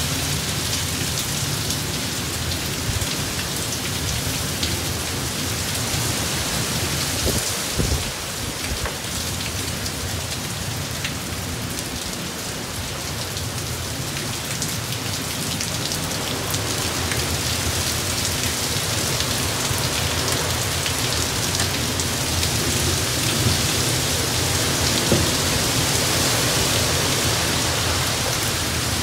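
Hurricane Zeta's heavy rain pouring down steadily, driven by gusting wind through the trees, the rush swelling and easing in waves.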